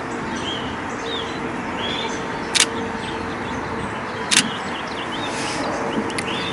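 Two sharp single camera-shutter clicks from a DSLR, about two seconds apart, over a steady background rush with a low hum and a few faint high bird chirps in the first couple of seconds.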